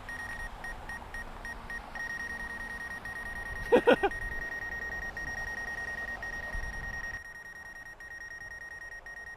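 High-pitched electronic beeping: quick short beeps that merge into one steady held tone about two seconds in. A brief loud call-like sound breaks in just before four seconds.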